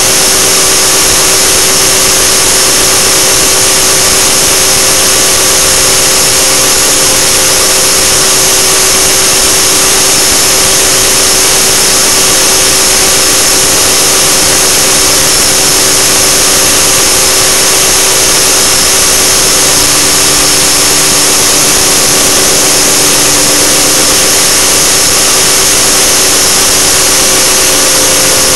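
Align T-Rex 600 radio-controlled helicopter in flight, heard from a camera mounted on it: a steady whine of its drive and rotor with a strong hiss over it. A second, lower tone joins about twenty seconds in.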